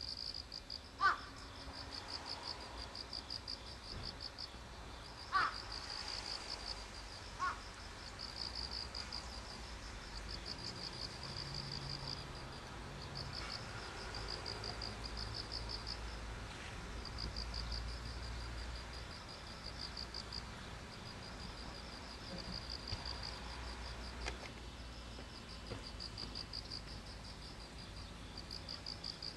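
Insects trilling in repeated pulsing runs, with three short, louder bird calls in the first third.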